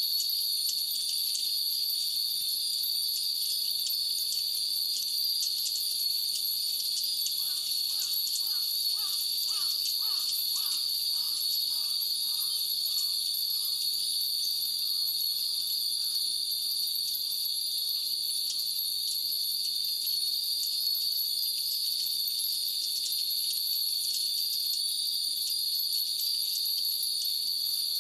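Hundreds of Japanese wind bells (furin) tinkling in the breeze, their light strikes scattered throughout, over a steady high-pitched summer insect chorus.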